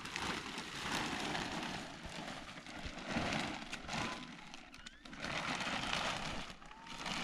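Clear plastic sheeting rustling and crackling as it is handled, in three swells of about a second each, with a few light clicks.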